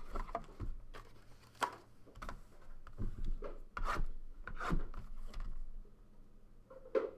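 Cardboard trading-card boxes being handled: pulled out of a cardboard box and slid across a table, a series of short scrapes and rubs.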